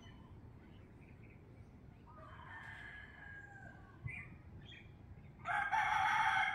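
A rooster crowing loudly near the end, one long call, with fainter calls a few seconds earlier.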